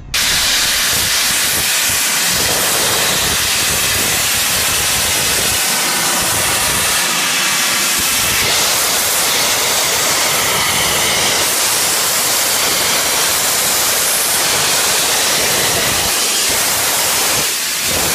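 Steam locomotive 60103 Flying Scotsman, an LNER A3 Pacific, venting steam: a loud, steady hiss that dips briefly near the end.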